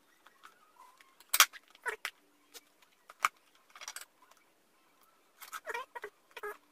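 Scissors snipping and scraping at the seal tape on a cardboard product box, with the box being handled. The result is irregular sharp clicks and short scratchy rustles, the sharpest about a second and a half in and a denser run near the end.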